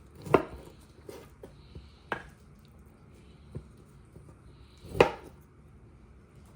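Sharp kitchen knocks from preparing raw meat: a loud strike just after the start and a louder one about five seconds in, with a few lighter taps and clunks between.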